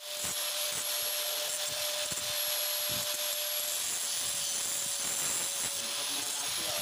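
A motor-driven tool running steadily: a constant hum over an even hiss.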